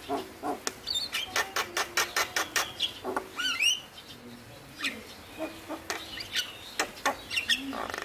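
Male Javan myna (jalak kebo) singing. It gives a rapid run of sharp, clicking notes, then quick rising whistles a little past three seconds in, then more scattered sharp notes and whistles after a short lull.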